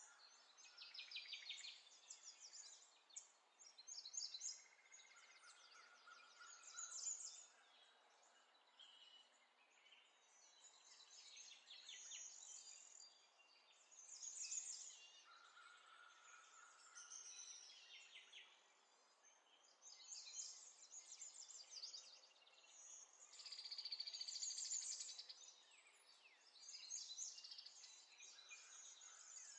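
Faint songbird song: bursts of rapid, high chirping trills every second or two, with a few short, steadier whistled notes.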